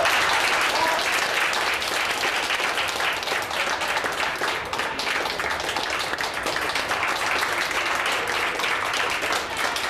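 A small group of people applauding, with dense, continuous hand clapping.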